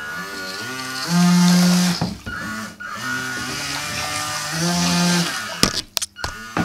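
Small electric motor of an RC water jet boat whining, its pitch rising and falling as the throttle changes, loudest about a second in and again around five seconds in. A few sharp clicks near the end.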